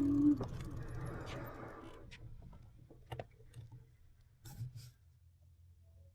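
An electric bike rolling to a stop: a steady motor whine cuts out just after the start, and the rolling noise fades over the next two seconds. A few separate clicks follow.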